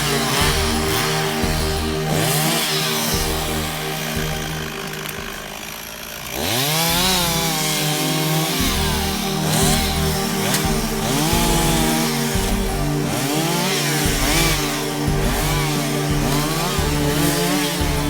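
Two-stroke chainsaw revved over and over while cutting wood, its engine pitch climbing and falling about once a second. After a brief dip about five seconds in, it revs up sharply again around six seconds in.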